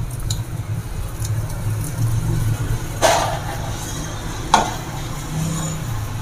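Chopped mango pieces dropping into a pot of thin custard drink, with a faint plop near the start, then two short sharp knocks about three and four and a half seconds in, over a steady low hum.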